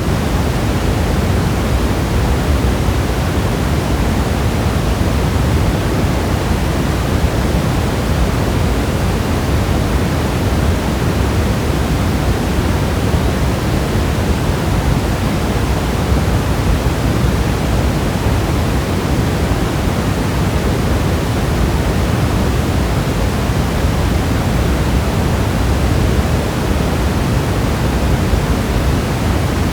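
Steady, dense rain making an even, unbroken hiss, with no single drops or thunder standing out.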